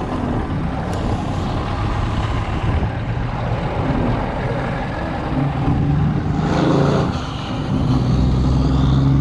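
Large truck's diesel engine revving as it drives by, getting louder in the second half, with a brief surge of noise a little before that.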